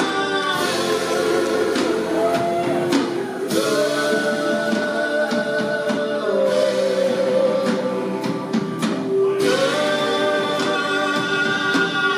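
Live rock power trio playing: electric guitar, electric bass and drum kit with sung vocals. Long held notes move to a new chord about every three seconds.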